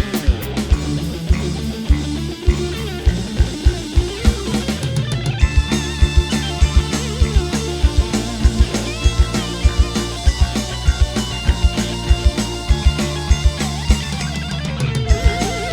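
Dangdut koplo street band playing an instrumental break: a guitar melody over a steady drum beat and bass.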